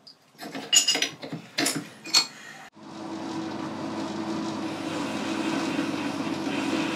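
A few sharp metallic clicks and knocks, then about three seconds in a Boxford metal lathe is switched on and its chuck runs up to speed, settling into a steady running hum.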